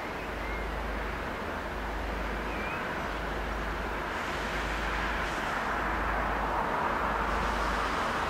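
Steady distant rumble and hiss of vehicle noise, growing a little louder in the second half, with a couple of faint, brief chirps early on.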